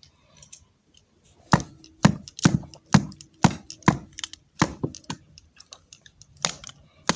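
A pencil repeatedly whacking a remote control: a run of sharp knocks about two a second, starting about a second and a half in, then two more near the end.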